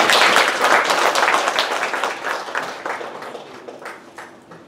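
Audience applauding: many hands clapping, loudest at first and dying away over the following seconds.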